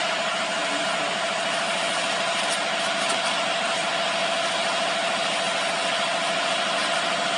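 Aerosol can spraying foam in one continuous blast: a steady hiss with a steady tone in it, cutting off abruptly after about seven and a half seconds.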